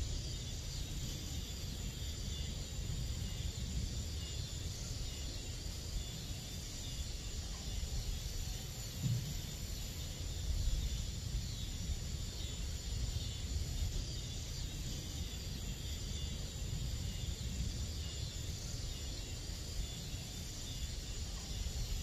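Summer-night insect chorus dominated by crickets trilling steadily, over a constant low rumble. A soft low bump about nine seconds in.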